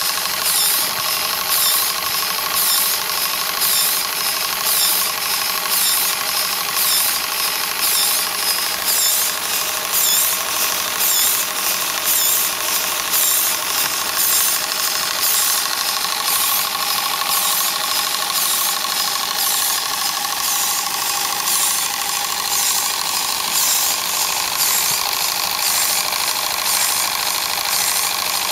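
Model live-steam water pump running, its strokes ticking and puffing evenly about twice a second over a steady hiss.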